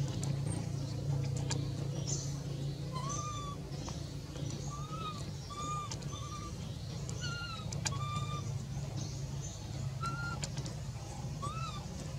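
Infant macaque giving a string of short, squeaky coo calls, each rising and falling in pitch, one every second or two, over a steady low hum.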